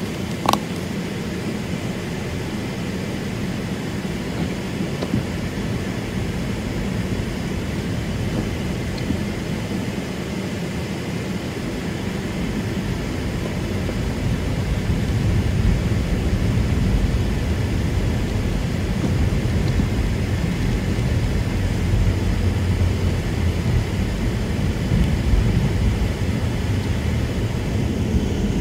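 Steady wind and road noise heard from inside a moving car in a windy storm, with a low rumble that grows louder about halfway through. A short click near the start.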